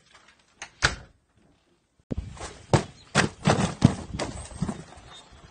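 A door knocks twice as it is handled. About two seconds in, the sound opens onto the outdoors: irregular footsteps and thumps, about three a second, on a concrete walk.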